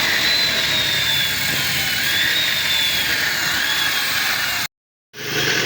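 Power tool working steel: steady harsh noise with a high whine that wavers and drifts downward in pitch. Near the end it cuts off abruptly and a different steady engine-like hum follows.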